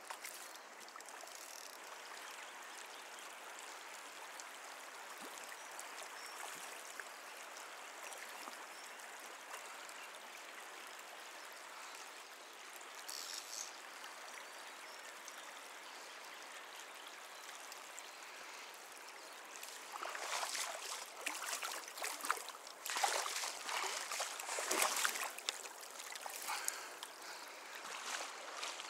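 Shallow stream running steadily over stones, with louder, irregular splashing and sloshing of water in the last third.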